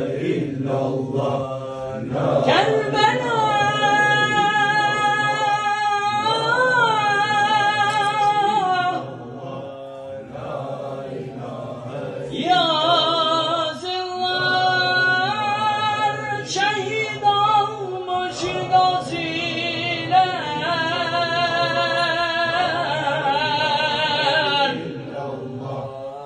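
Sufi devotional chanting: a solo voice sings long, wavering, ornamented phrases over a steady low drone of group chanting. There are two long phrases, with a quieter pause between them around the middle.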